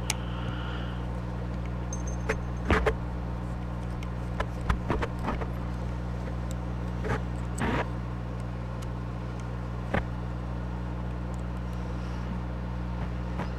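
Scattered small clicks, taps and scrapes of a screwdriver and small plastic model-locomotive parts being handled, over a steady low hum.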